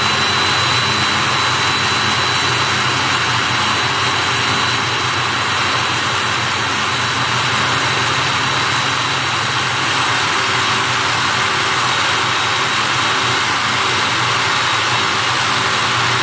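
Electric drill running steadily as a Bosch 4 mm Multi Construction bit grinds into the enamelled cast iron of a bath, a continuous grinding whine with no break.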